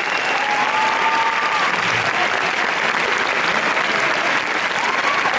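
Audience applauding steadily, with a few long high cheers from the crowd rising over the clapping.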